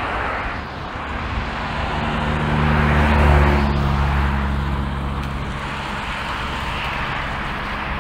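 A low engine hum, steady in pitch, that swells to its loudest about three seconds in and then slowly fades, over a steady background noise.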